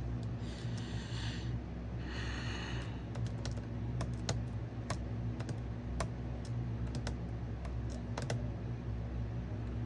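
Two brief rustles, then a run of light, irregular clicks and taps from small objects being handled on a work table, over a steady low electrical hum.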